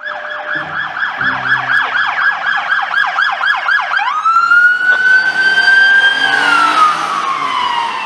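Police car siren on the move. It starts in a fast yelp, about four rising-and-falling sweeps a second. About four seconds in it switches to a slow wail that climbs, holds, then falls away.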